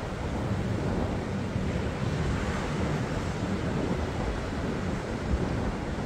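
Ocean surf washing onto a sandy beach, a steady rush of waves, with wind buffeting the microphone in uneven low gusts.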